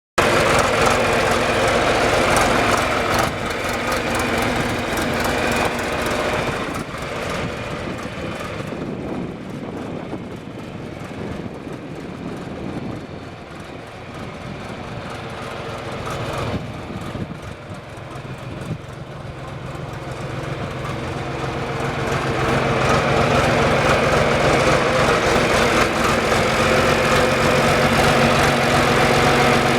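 Backhoe's diesel engine running steadily. It gets quieter through the middle and louder again in the last third.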